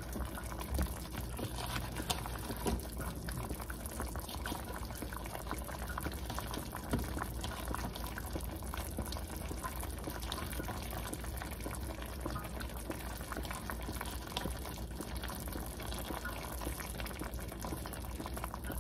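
Chicken and artichoke hearts simmering in broth in a stovetop pot, bubbling steadily with many small pops.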